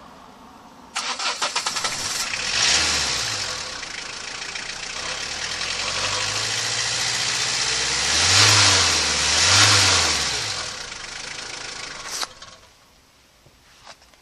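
Citroën Berlingo engine cranked and started about a second in, then revved several times, with two big revs just past the middle. A fake turbo whistler fitted in the exhaust pipe adds a hissing whistle that rises with each rev. The engine shuts off near the end.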